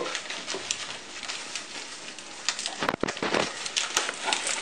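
Plastic bubble-wrap packaging crinkling and crackling as it is handled and pulled open around a docking station, with a few louder crackles about three seconds in.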